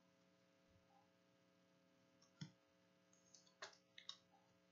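Near silence broken by a few faint clicks and taps of trading cards and a plastic card sleeve being handled: one about halfway through and a quick cluster near the end.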